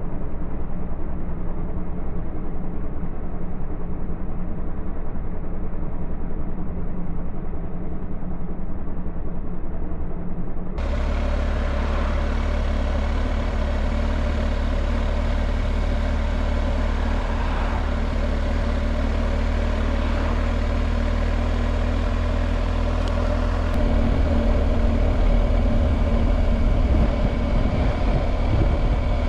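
BMW R1250GS Adventure's boxer-twin engine running steadily on the move, with wind and road noise picked up by the bike-mounted camera. The sound changes abruptly twice where clips are joined: muffled at first, then fuller with a stronger low rumble about 11 seconds in, and a little louder again about 24 seconds in.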